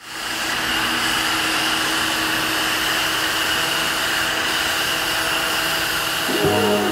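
Steady whirring of a motor-driven blower with a faint high whine. Music with a bass line comes in near the end.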